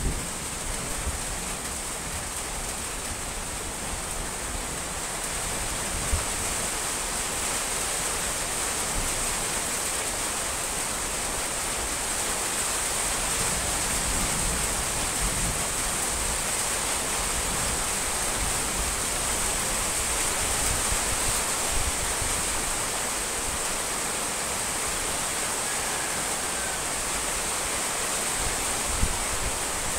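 Steady rain falling, an even rushing hiss with a few sharper drip hits now and then.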